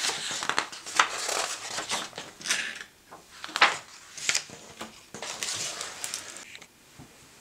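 A hardcover picture book being handled and closed: pages turning and its plastic-covered dust jacket rustling and crinkling, with a few sharp taps. The handling stops about six and a half seconds in.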